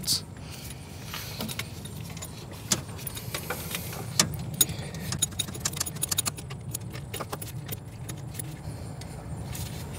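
Irregular metallic clicks and clinks of a wrench working on the alternator's mounting bolts as they are tightened, over a steady low hum.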